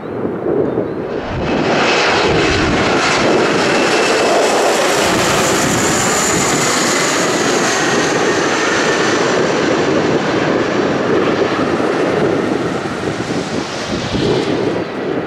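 Regional jet with two tail-mounted turbofan engines passing low overhead on final approach. The jet noise swells about a second and a half in, stays loud with a high whine that falls in pitch as it goes over, and fades near the end as the jet moves away toward the runway.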